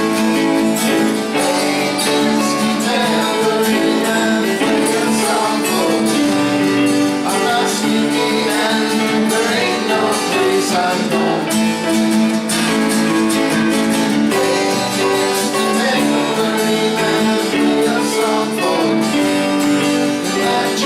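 Music with strummed acoustic guitar, played without a sung lyric.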